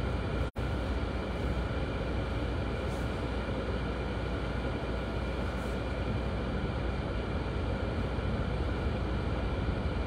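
Car running, heard from inside the cabin as a steady low rumble with a hiss over it; the sound drops out completely for an instant about half a second in.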